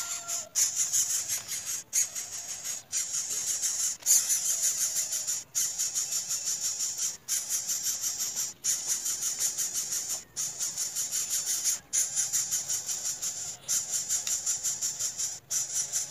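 Steady high-pitched chirring, pulsing rapidly, typical of insects in grassland, with brief dropouts every couple of seconds.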